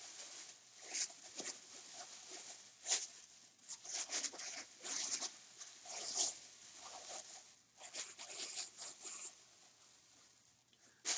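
Thin plastic bag crinkling and rustling in irregular bursts as hands rummage in it and crumple it.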